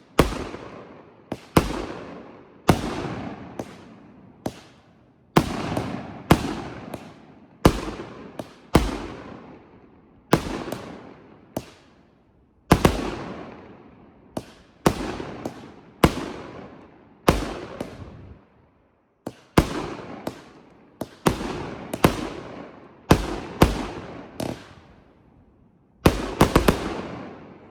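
Multi-shot firework cake firing a long run of aerial shots, about one a second, each a sharp bang that trails off, with a quick cluster of several shots near the end.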